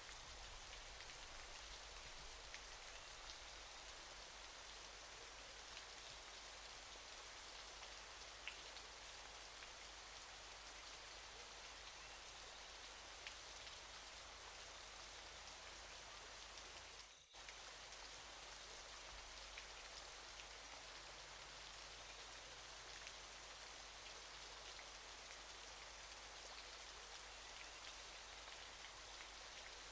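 Waterfall: a quiet, steady hiss of falling water, flecked with faint drop-like ticks. It dips out for a moment about seventeen seconds in.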